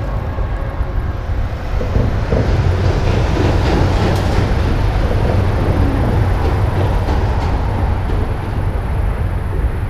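Steady rumble of road traffic crossing the highway bridge overhead, swelling a little about two seconds in.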